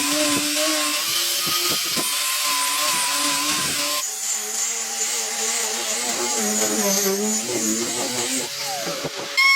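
An electric power tool's motor running while working wood, its pitch wavering up and down as the load changes. Near the end a new pitched sound comes in suddenly and drops in pitch.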